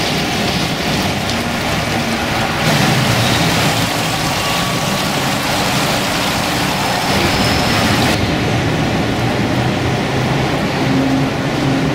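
Steady city traffic noise, with vehicles running on the streets below and a low engine hum underneath.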